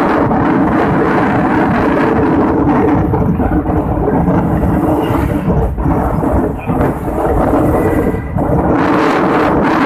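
Loud, steady rumble of wind buffeting the microphone over the engine and tyre noise of a moving vehicle, with a faint steady hum underneath.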